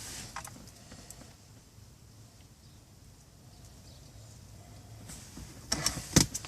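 Faint handling noise from work on the wiring under the dash, with a light click just after the start and a quick cluster of sharp clicks and snaps near the end, the loudest a single hard click.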